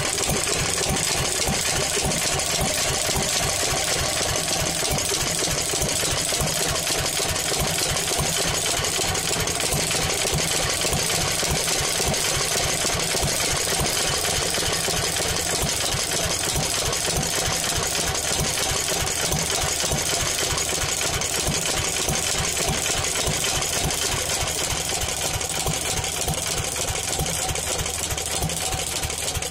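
Pilter horizontal stationary engine running steadily at an even pace, its regular beat unchanging throughout.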